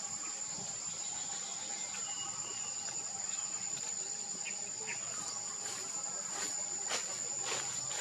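Steady high-pitched insect chorus, with a few sharp clicks in the second half.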